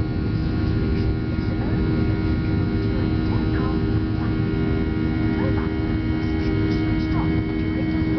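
Boeing 737 NG jet engines (CFM56) running steadily during takeoff: a constant drone with several steady humming tones over a low rumble.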